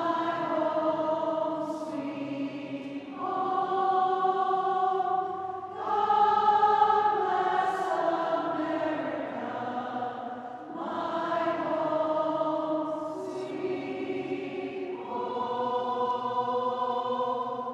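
Women's choir singing slowly in long held notes, the pitch moving to a new sustained note every two to three seconds.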